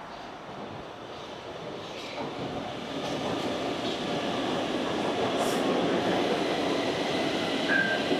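Stockholm metro train running through the station, its rolling noise growing steadily louder from about two seconds in. A thin high whine joins in the second half, and there is a short squeal near the end.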